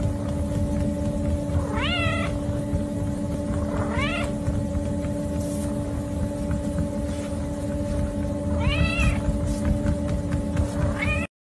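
A tabby kitten meowing four times, each call rising and then falling, over the steady hum and rumble of a running treadmill's motor and belt.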